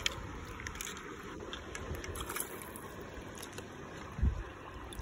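Shallow stream water running over stones, with wind and handling noise on the phone's microphone and one low bump about four seconds in.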